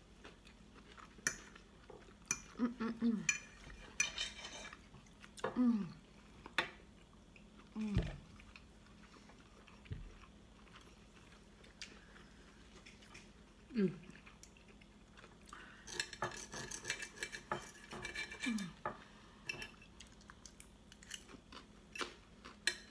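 Knives and forks clinking and scraping on ceramic dinner plates as roast beef is cut and eaten, with scattered sharp clinks and a busier run of clinking about two thirds of the way in, plus some chewing.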